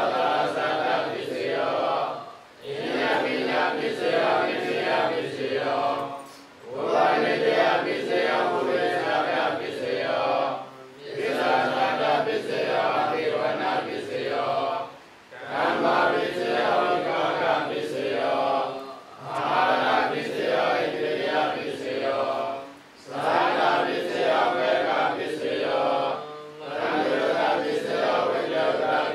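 Group of Buddhist monks chanting Pali verses together in unison. The chant moves in phrases of about four seconds, each followed by a short pause for breath.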